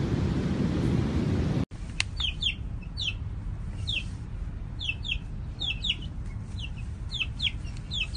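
Wind buffeting the microphone for the first second and a half, then a chick peeping: short, high, falling peeps about twice a second, several in quick pairs.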